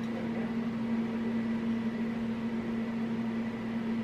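A steady low hum that holds one even pitch throughout, over faint room noise.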